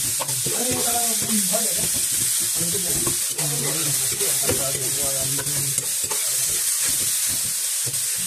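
Sliced onions and green chillies frying with a steady sizzle in a metal pan, a metal spoon stirring and scraping against the pan.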